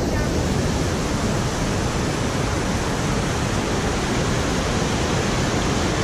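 Låtefoss waterfall and the whitewater rapids below it rushing: a loud, steady rush of falling and churning water.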